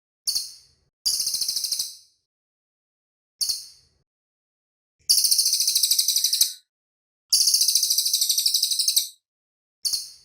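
Cililin songbird singing high-pitched phrases: short single chirps alternating with fast rattling trills of rapidly repeated notes, with two long trills of about a second and a half each in the second half.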